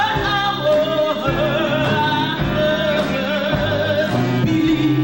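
Song with a wavering sung melody over instruments and a steady beat.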